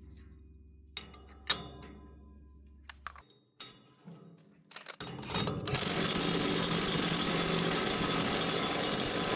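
A few sharp metal knocks and clanks, then from about halfway in an impact wrench runs steadily for about four seconds, tightening a nut on an axle.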